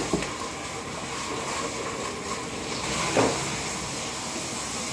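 Olive oil heating in a non-stick wok on the hob, giving a steady soft hiss. A brief knock about three seconds in.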